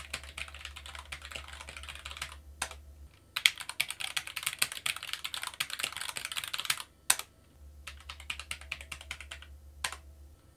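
Computer keyboard typing, a fast run of clicking keystrokes, heard in turn through two microphones. The typing is quieter through the RØDE XDM-100 dynamic mic, with a faint low hum under it. It is louder and brighter through the XCM-50 condenser mic from about three seconds in. It goes quieter again through the dynamic mic after about seven and a half seconds.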